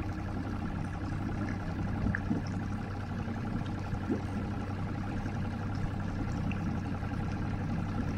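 Mercury 90 outboard motor running steadily at low idle speed, a constant low hum.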